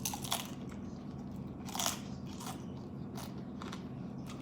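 Close-up eating sounds: crisp crunching bites and chewing of crunchy food, a cluster of crunches at the start and the loudest crunch about two seconds in, then softer chewing crackles.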